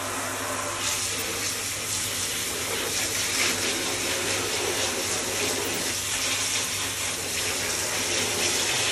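Handheld shower head spraying water onto plastic cyclone parts and rubber gaskets in a bathtub, a steady hiss and splash of running water, rinsing the bleach off.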